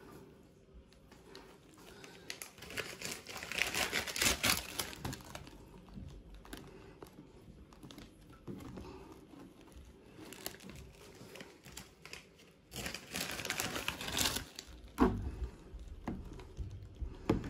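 Dry grass and root fibres crinkling and rustling as a hand works them into place, in two spells of a couple of seconds each, with a few soft knocks near the end.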